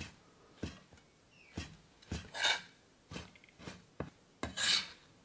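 Kitchen knife cutting dried tofu on a cutting board: about eight sharp, irregularly spaced knocks of the blade meeting the board, with a couple of longer scraping sounds.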